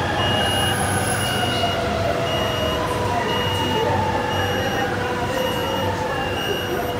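Shanghai Metro Line 4 train braking to a stop at a platform: its motor whine glides steadily down in pitch over a steady rumble. A short high electronic beep repeats about every 0.7 s, the warning signal ahead of the doors opening.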